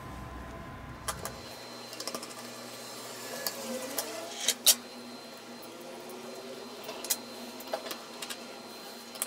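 Small metal clicks and taps of a precision screwdriver working on the tiny screws and parts inside an opened iPhone 6, scattered and irregular, with the sharpest pair of ticks about four and a half seconds in.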